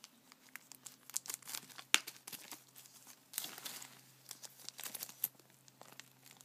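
Small clear plastic bag crinkling and crackling in the hands as it is snipped open with scissors, with scattered sharp clicks and one louder click about two seconds in.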